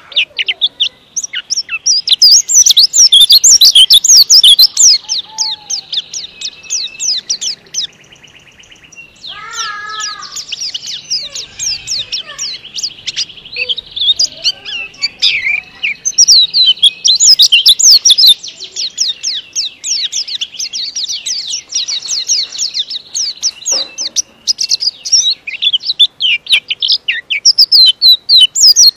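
A caged white-eye (pleci) singing a long, fast, high-pitched twittering song of tightly packed notes, coming in loud runs with a brief lull about eight seconds in.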